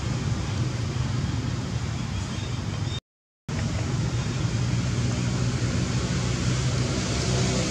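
Steady low rumbling background noise, cutting out to silence for about half a second about three seconds in.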